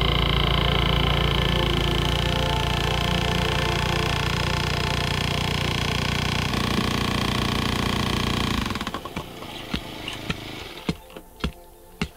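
An engine running steadily, then cutting off about nine seconds in, followed by a few sharp knocks.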